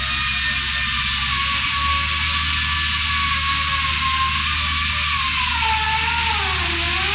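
Water-fed pneumatic chainsaw running while cutting into a stone block: a loud, steady air hiss with a whining motor tone that sags in pitch about six seconds in and picks up again near the end.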